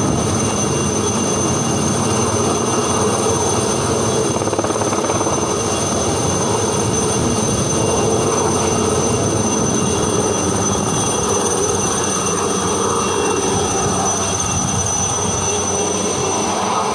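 Aérospatiale SA 315B Lama helicopter's Turbomeca Artouste turboshaft engine and rotor running, a steady high turbine whine over continuous rotor and engine noise.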